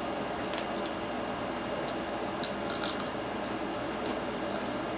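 Close-up eating of crabs: wet chewing and lip-smacking, with scattered short sharp clicks, a small cluster of them about halfway through.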